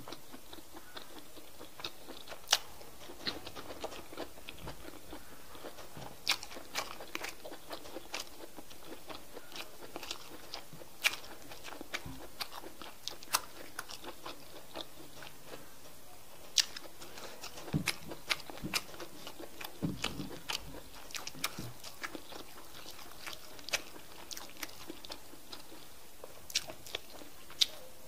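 Close-miked eating of okra soup with fish and chicken by hand: chewing and biting, with many irregular sharp wet mouth clicks and crunches.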